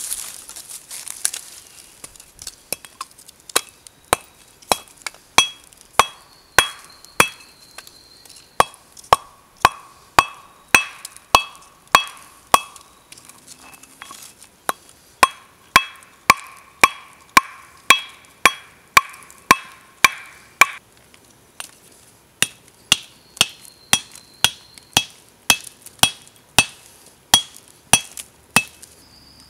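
A hand-held stone strikes a glowing lump of hot slag from an iron smelt on a flat stone anvil, breaking it up, in a steady rhythm of about one and a half to two blows a second. Each blow is sharp and has a short ring, and there is a brief pause about three quarters through.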